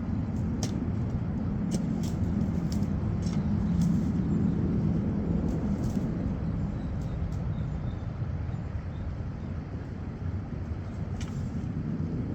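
Steady low rumble of a road vehicle's engine and tyres while driving, with a few faint clicks or rattles.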